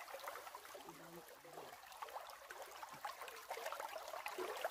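Faint trickle of water in a shallow stream, with small scattered ticks.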